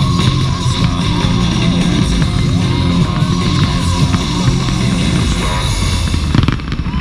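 Loud rock music with electric guitar, played for the fireworks display, with the occasional sharp bang of fireworks bursting. The music changes near the end.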